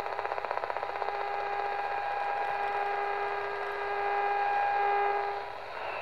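Medium-wave (AM) radio reception noise. A rapid pulsing buzz of interference gives way about a second in to a steady whining tone over static. Near the end the tone drops out and the static shifts to a hissier sound with a higher whistle.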